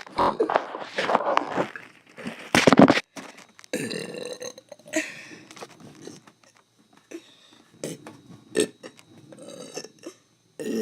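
A person burping repeatedly: a run of separate burps, the loudest about two and a half seconds in, followed by shorter, quieter ones.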